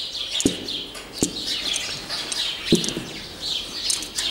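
Many small birds chirping in short, high calls, with three dull knocks about half a second, one second and two and a half seconds in.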